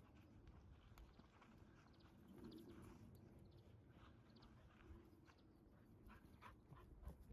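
Near silence: faint outdoor ambience with scattered faint short high-pitched ticks or chirps.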